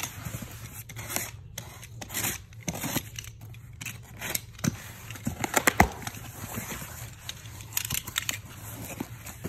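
A package being opened by hand: irregular tearing, crinkling and rustling of packaging, loudest in a quick cluster a little past halfway.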